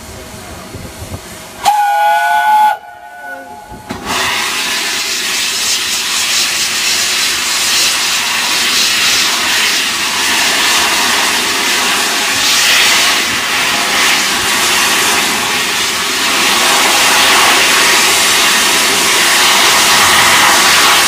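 Steam locomotive 60163 Tornado, an A1 Pacific, gives a short whistle about two seconds in, then starts away with a loud, steady hiss of escaping steam.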